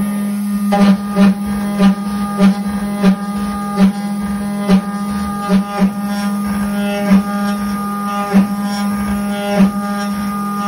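Shopbot Desktop CNC router's spindle running with a steady hum as its end mill cuts into an aluminum block. A louder burst of cutting noise comes roughly once a second.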